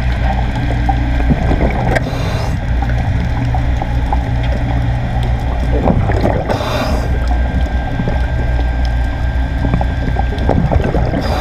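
Underwater sound picked up by a diver's camera: a steady low hum with crackling, broken every four to five seconds by a brief rush of exhaled regulator bubbles.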